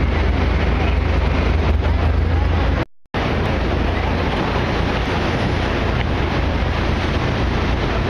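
Wind buffeting the microphone with a heavy low rumble, over a steady wash of city street noise. The sound cuts out completely for a moment about three seconds in.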